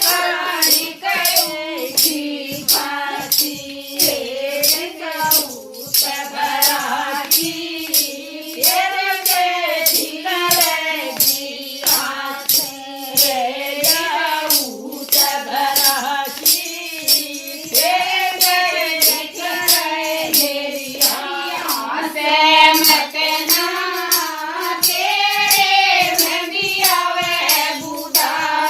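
A Haryanvi bhajan sung over a steady percussion beat of about two strokes a second.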